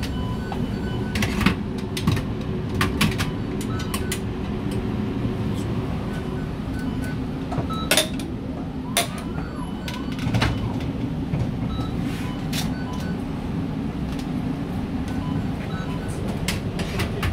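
Steady hum of commercial kitchen machinery, with metal parts clattering now and then and short electronic beeps repeating.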